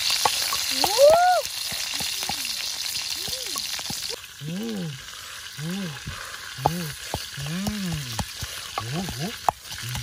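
Small birds sizzling as they fry in an oiled wok, turned with a wooden stick, with scattered knocks. A short squeak that rises and falls recurs about once a second, and the sizzle drops somewhat about four seconds in.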